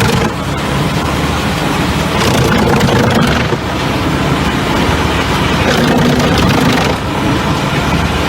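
Forestry drum wood chipper running under load, its engine and chipping drum making a loud, steady din as logs are fed in and chipped.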